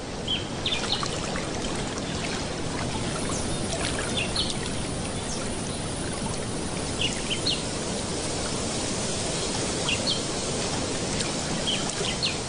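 Steady running, pouring water with short high bird chirps scattered throughout.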